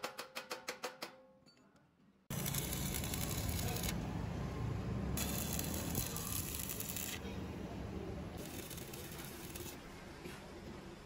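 Quick, ringing hammer taps on a steel air tank, about five a second, dying away about a second in. After a short pause, the crackle and hiss of stick welding starts suddenly and runs on steadily.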